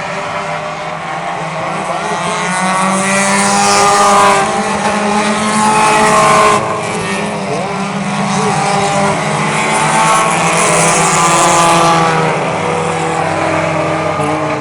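Engines of a pack of Lightning Bug mini-class race cars revving as they run laps, several at once with pitches rising and falling as they go by. The sound swells twice, about four to six seconds in and again around ten to twelve seconds, cutting back sharply between the two.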